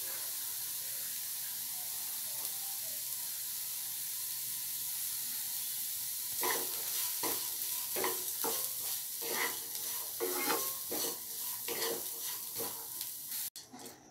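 Chopped carrots, beans and green chillies sizzling in oil in a non-stick kadhai, a steady hiss. About six seconds in, a wooden spatula starts stirring them, scraping and tapping against the pan about twice a second.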